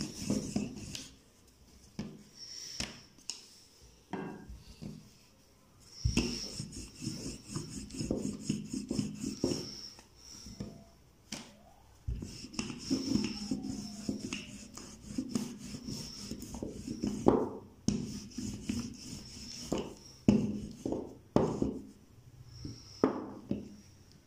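Wooden rolling pin rolling a ball of dough out on a board: quick back-and-forth strokes with rubbing and light knocks, in several runs of a few seconds separated by short pauses.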